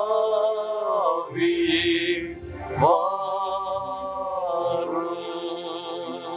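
Men singing a Tamil Christian hymn into microphones, slow and unhurried, holding each note for a second or two and sliding smoothly between pitches.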